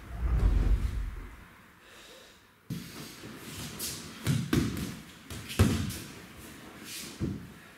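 Aikido partners' bodies and bare feet thudding on the dojo mats, with the swish and rustle of their cotton gi: a low thump right at the start, then a string of sharp thuds, the loudest a little past halfway as a partner is thrown to the mat.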